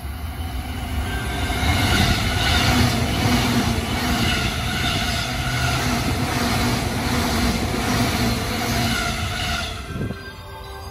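A JR Keiyo Line E233-series electric commuter train running close past. A steady motor hum and wheel-on-rail noise with a regular beat grow loud within the first two seconds, hold for several seconds, then fall away sharply about ten seconds in as the last car clears.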